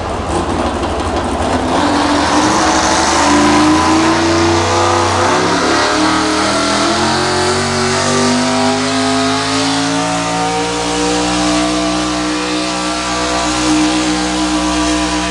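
Pickup truck engine at full throttle under heavy load, pulling a weight-transfer sled in a truck pull. The engine note firms up about two seconds in and climbs slowly in pitch as the truck drags the sled down the track.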